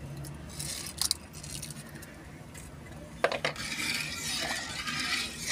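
Light clinks of a spoon against a metal pot as whole spices go into the rice water: one sharp click about a second in and a few more a little past three seconds. A steady low hum lies under it, with a soft hiss building near the end.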